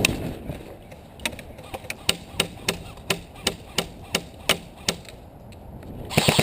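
Airsoft guns firing: a string of about a dozen single sharp shots, about three a second. Near the end a louder rapid full-auto burst begins.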